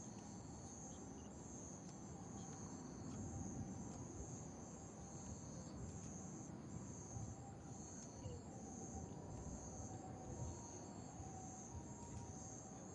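Night insects chirring in a steady, pulsing high trill, with a second fainter trill coming and going. A low rumble runs underneath.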